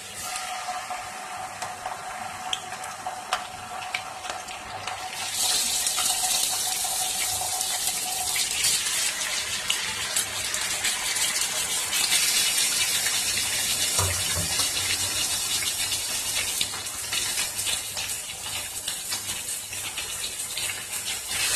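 Raw chicken pieces sizzling and crackling in hot oil in a nonstick wok. The sizzle starts as the first piece goes in and grows louder about five seconds in as more pieces are added.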